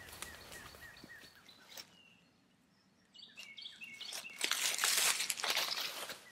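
Birds chirping, a quick run of short repeated notes in the first two seconds, then a brief lull and more calls. From about four and a half seconds in comes the louder rustling crunch of dry leaf litter being trodden and disturbed.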